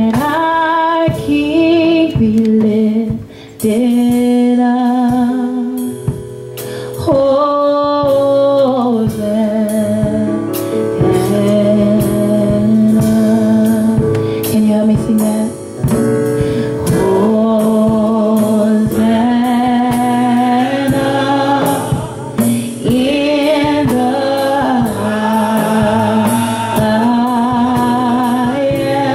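A woman singing a gospel song in long, wavering held notes, over sustained instrumental chords and a steady beat.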